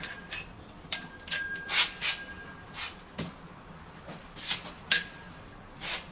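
Gold-finish wall faucet being turned by hand to screw it onto its fitting: a few sharp metal clinks that ring briefly, about a second in and again near five seconds, with softer rubbing and scraping sounds between them.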